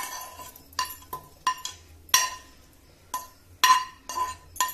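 Steel spoon scraping and tapping fried onions and green chillies out of a non-stick pan into a steel mixer-grinder jar: a string of sharp metal clinks, about nine, each with a short ring.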